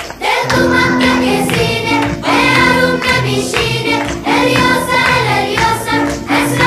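Background music with voices singing.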